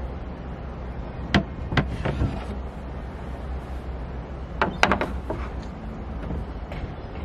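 Sailboat's sliding wooden companionway hatch being worked by hand: a few sharp wooden knocks about a second and a half in, then a louder cluster of knocks about five seconds in, over a steady low rumble of wind.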